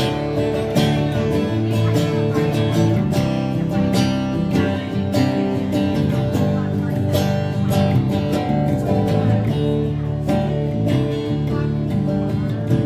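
Country song played live without vocals: an acoustic guitar strumming a steady rhythm, with an electric bass playing underneath.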